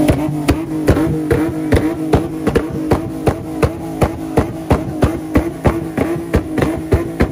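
Car engine revved up and held at a steady high speed, banging out sharp, evenly spaced exhaust pops about two and a half times a second over the engine's steady tone: backfires into the exhaust, with flames shooting from the tailpipe.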